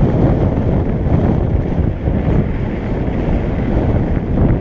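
Wind buffeting the rider's camera microphone while riding fast downhill, mixed with the rumble of the mountain bike's tyres rolling over a gravel road.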